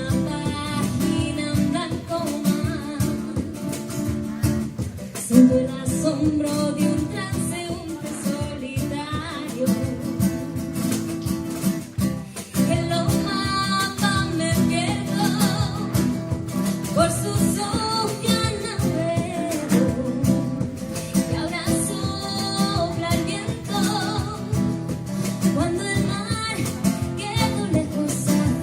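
Live acoustic guitar strummed and picked in a flamenco-like style over cajón beats, a steady band passage with no clear words.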